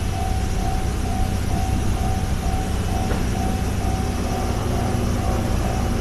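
Japanese railway level-crossing warning bell ringing in a steady repeating ding-ding, about two strikes a second, over a steady low rumble.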